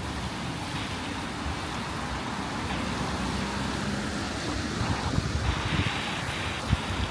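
City street traffic passing on a rain-wet road: a steady rush of tyres and engines, with a louder tyre hiss from a passing vehicle over the last second and a half and a sharp click just before the end.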